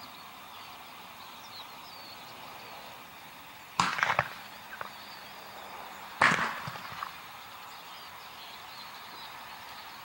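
Propane bird-scare cannon, the vineyard kind used to frighten birds off grapes, firing two sharp bangs about two and a half seconds apart, each trailing off in a short echo.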